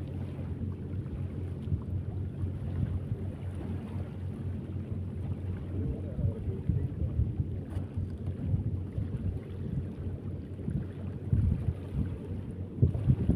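Wind buffeting the microphone: a low, uneven rumble that gusts up and down, a little stronger near the end.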